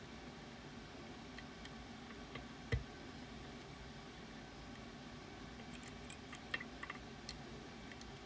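Faint clicks and taps of tools working on a Ruko Garant 10 lock, with one low knock about three seconds in and a quick cluster of sharp clicks near the end.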